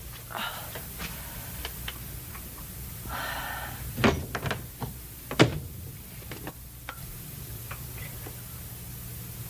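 Scattered light clicks and knocks, with two louder thumps about four and five and a half seconds in, over a steady low hum.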